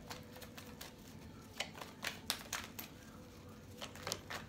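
A deck of tarot cards shuffled by hand: a scatter of soft, irregular clicks and snaps as the cards slap together, over a faint steady hum.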